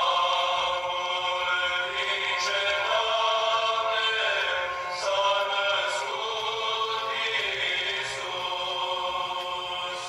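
Music with singing: voices holding long notes that change every second or two.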